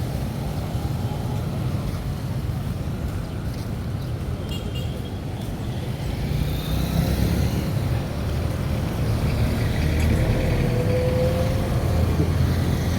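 Street traffic: vehicle engines running and passing with a steady low rumble that grows louder about halfway through.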